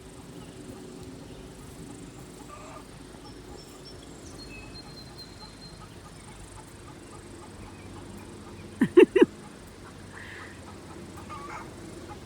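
Poultry in a backyard flock: three quick, loud pitched squawks in a row about nine seconds in, then a few softer calls.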